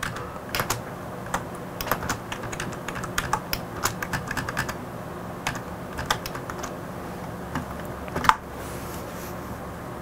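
Typing on a computer keyboard: quick runs of key clicks for the first four or five seconds, a short pause, a few more keys, then one louder keystroke near the end, over a faint steady hum.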